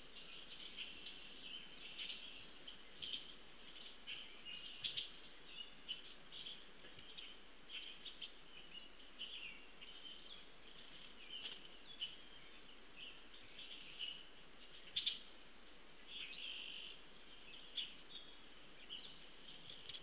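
Several songbirds calling and singing, a busy string of short, high chirps and trills with a few sharp clicks mixed in.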